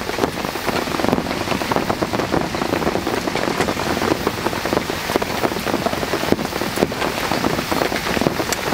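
Heavy rain falling on a camp tarp overhead: a dense, steady patter of drops, with a few sharper single drips standing out.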